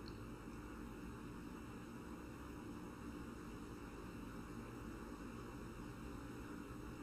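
Quiet room tone: a faint, steady electrical hum with hiss, and nothing else happening.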